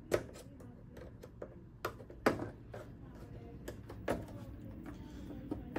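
Scattered clicks and knocks of hard plastic TV parts being handled, with sharper knocks just after the start, around two seconds in and about four seconds in.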